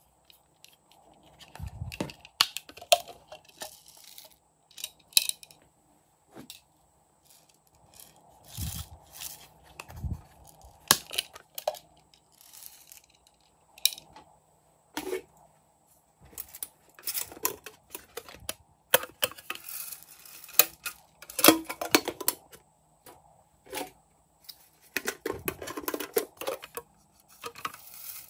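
Plastic toy containers clicking and tapping as they are handled and opened, with sprinkles and glitter shaken out of them pattering onto slime in a plastic bowl: scattered short clicks, with busier stretches of rattling twice in the second half.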